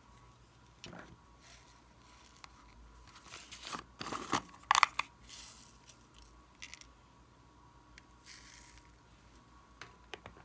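Small plastic bottles and a container being handled and opened, with light plastic clicks and a cluster of short scratchy, rattling noises as glitter and confetti are shaken out, the loudest a little before five seconds in.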